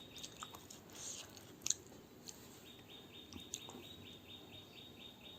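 Close-up chewing with a few crisp crunches, the loudest about a second and a half in. From about halfway, a faint chirping in the background repeats about four to five times a second.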